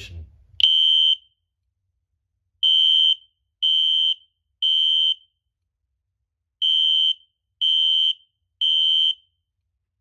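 System Sensor SpectrAlert horn strobe sounding its horn in the temporal-three evacuation pattern. It gives a steady high-pitched beep of about half a second, three times a second apart, then a pause, then three more. A single beep comes just before the first group.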